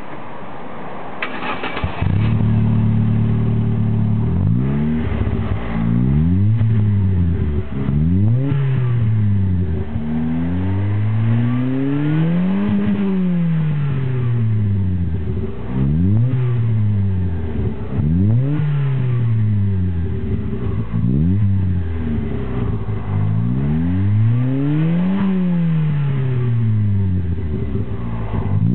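Opel Corsa B 1.2 four-cylinder engine heard through an aftermarket stainless sport exhaust. It starts up about two seconds in and then settles to idle. It is blipped in neutral about ten times, each rev rising and falling back to idle, with two longer, higher revs near the middle and near the end.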